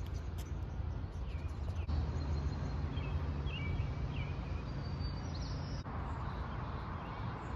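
Outdoor ambience: a steady low rumble of wind on the microphone with a few faint bird chirps. The background changes abruptly twice, about two and six seconds in.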